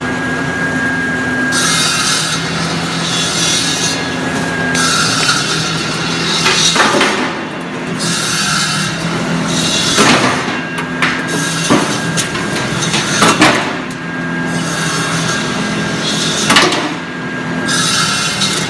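Corn kernel cutting machine running: a steady motor hum under a rasping cutting noise that swells and fades every few seconds as cobs are fed through, with several sharp knocks.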